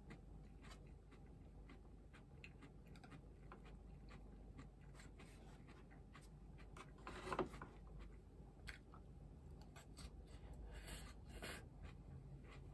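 Faint clicks and scrapes of chopsticks against a ceramic bowl while picking at shredded-cabbage salad, with one louder knock about seven seconds in.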